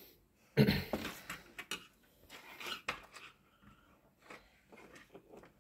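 Handling noise: scattered clicks, knocks and rustles of wires, a small circuit board and a screwdriver being moved about on a wooden table, the loudest knock a little over half a second in. There is no fan hum.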